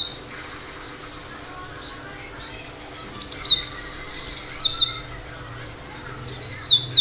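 Cinereous tit (gelatik batu) singing in three quick bursts of high, sharp notes. Each burst is a fast run of short falling strokes, ending in a slightly lower clipped whistle; the first comes about three seconds in.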